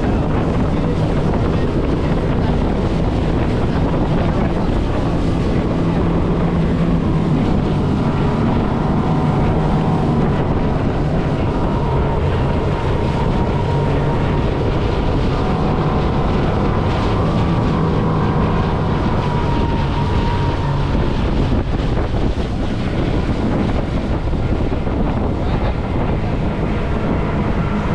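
Outboard motor of a 20-foot Carolina Skiff running steadily under way, with water rushing past the hull and wind buffeting the microphone.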